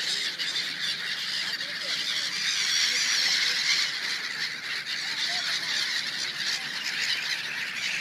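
A large flock of gulls calling all at once, a continuous dense chorus of many overlapping high-pitched calls as they crowd in to feed.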